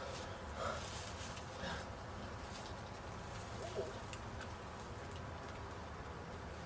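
Quiet woodland ambience with a few faint, short bird calls over a low steady rumble.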